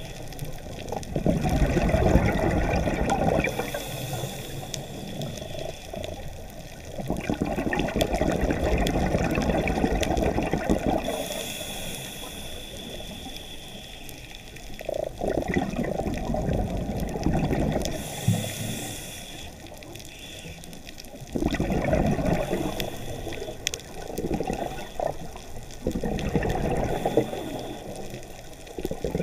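A scuba diver breathing through a regulator underwater. Five rushes of exhaled bubbles come about six seconds apart, and a quieter hissing inhale falls between them.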